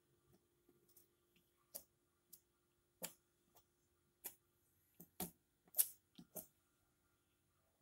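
Metal palette knife dabbing and scraping thick acrylic paint on paper: a string of irregular sharp clicks and taps, the loudest about six seconds in.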